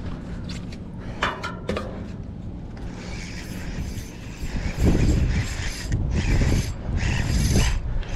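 Spinning fishing reel being cranked to wind in line, its rotor and gears whirring with a light ratcheting click in runs of about a second, with short pauses between turns.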